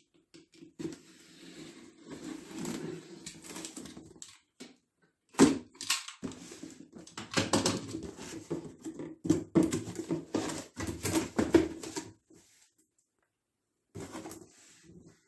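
Cardboard shipping box being handled and opened: scraping and rubbing of cardboard as the flaps are pulled open, with a sharp knock about five seconds in.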